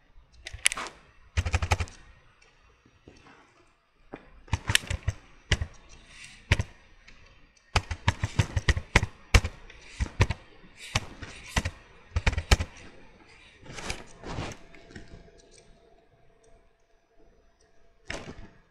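Computer keyboard being typed on: bursts of fast, sharp keystrokes separated by pauses of a second or two.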